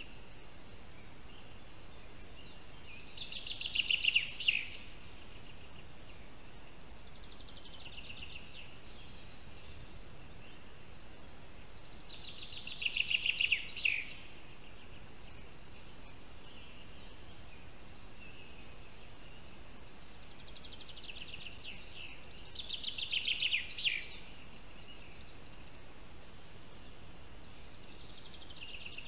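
A songbird singing: a fast trilled phrase of about two seconds, repeated three times at roughly nine-second intervals, with fainter song phrases between. A steady background hiss lies under it.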